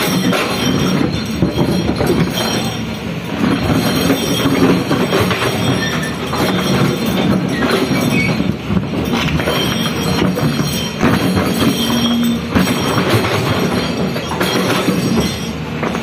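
Hydraulic excavator working under heavy load, with its diesel engine running and metal squealing and clanking as it strains against a stubborn wall or stump.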